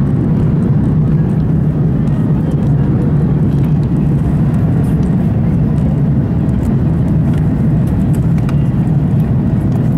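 Steady low roar inside the passenger cabin of an Airbus A330-200 climbing after takeoff: its jet engines and the rushing air, with a deep hum running through it.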